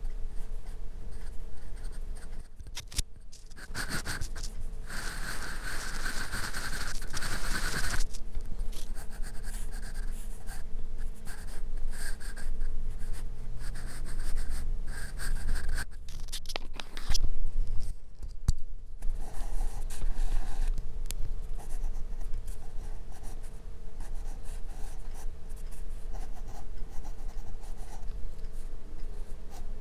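Graphite pencil scratching on sketch paper in irregular strokes, with a louder stretch of quick, dense shading strokes a few seconds in. A faint steady hum lies underneath.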